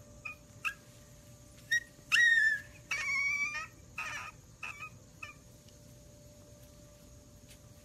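Husky puppies whimpering and squeaking in their sleep: a string of short high-pitched cries, the loudest and longest about two seconds in, dying away after about five seconds.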